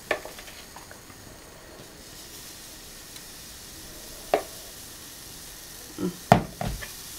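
Pancake batter sizzling faintly in a hot buttered non-stick frying pan. A spoon knocks sharply once near the start and once about four seconds in, then several times near the end.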